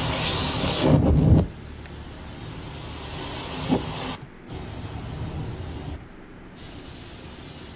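Heavy rain and traffic on a flooded road, a loud hiss of rain and water spray for about the first second and a half, then a quieter low rumble broken by a couple of brief cut-outs.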